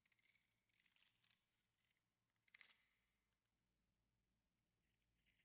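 Faint jingling and clinking of a bunch of keys in a few short bursts: one through the first second or so, a sharper one a little before the middle, and another near the end.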